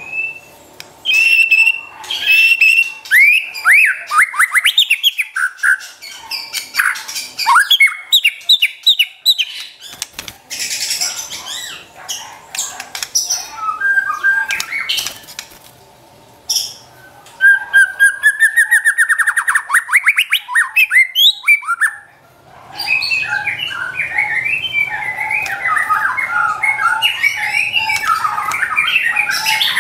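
White-rumped shama (murai batu) singing: loud, varied whistled phrases with sweeping notes and fast trills, with short pauses between them. About two-thirds of the way through it breaks into dense, rapid, continuous chattering song.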